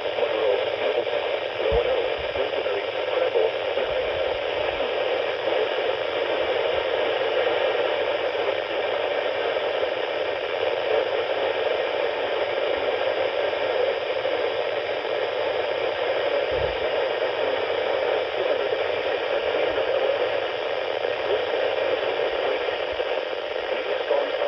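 Weather radio receiver giving a steady hiss of static with no voice in it, as when the broadcast signal has dropped out.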